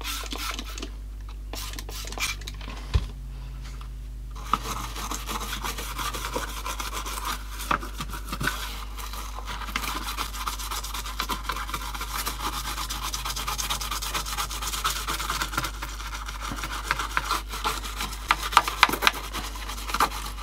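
A small bristle brush scrubbing dirt out of the slots of a transistor radio's plastic grille: a continuous rapid scratchy rasping that starts about four and a half seconds in, after a few light taps and clicks.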